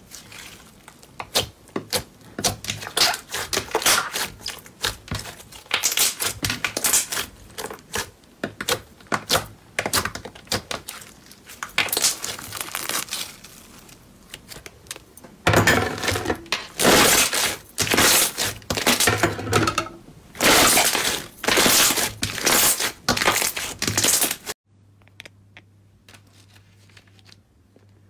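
Sticky slime being stretched, folded and squeezed by hand, giving loud bursts of crackling and clicking. Near the end it drops to a few faint clicks.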